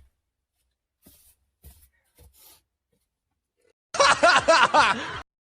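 Laughter in short, loud pulses lasting about a second, starting about four seconds in. Before it there are only faint clicks and rustles.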